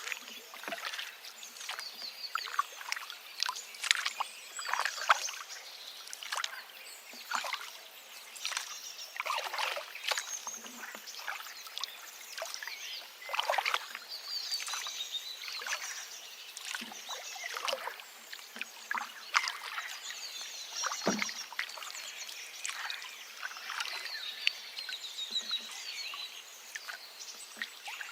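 Forest river running and babbling over stones in a dense, irregular stream of splashes, with small birds chirping here and there.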